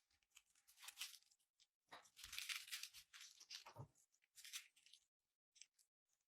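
Faint crisp crunching and tearing in several short bursts; the longest runs from about two to three and a half seconds in.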